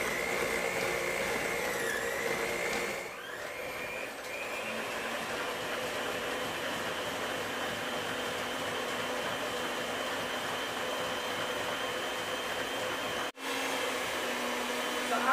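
Red Lorena Garcia electric stand mixer running steadily on its lowest speed, its beater churning crushed Oreo cookies into cream cheese in a stainless steel bowl. The motor hum has a thin whine over it and breaks off for an instant near the end.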